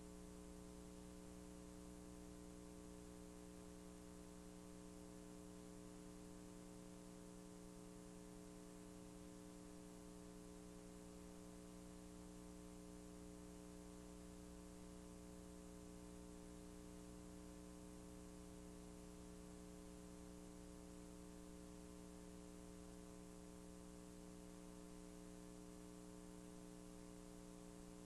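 Near silence: a steady electrical hum with faint hiss, unchanging throughout, with no sound from the scene itself.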